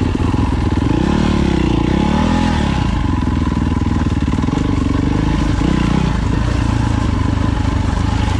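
Four-stroke single-cylinder dirt-bike engine running under load, with the revs rising and falling a couple of times about a second in, and again near six seconds.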